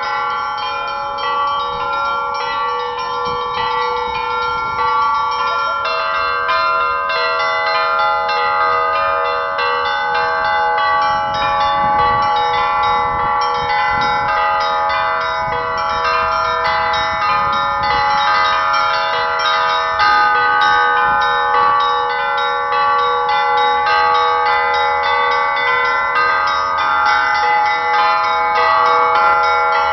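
The Pakshenga church bells rung in a continuous peal, several bells of different pitches struck in quick succession so that their tones overlap and ring on together.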